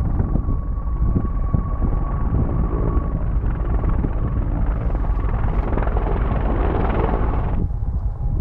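Steady whirring hum of a small quadcopter drone in flight, over heavy wind rumble on the microphone; the whir cuts off abruptly near the end while the low rumble goes on.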